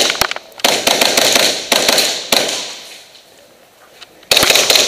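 Airsoft gunfire: several sudden bursts of rapid shots, each trailing off over about a second, with a quieter stretch around three to four seconds in and another burst near the end.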